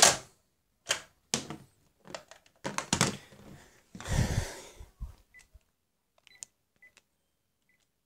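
Clicks and knocks of a cordless phone handset being picked up and handled, with a louder rustle about four seconds in. A few short, faint beeps follow near the end as its keys are pressed to dial.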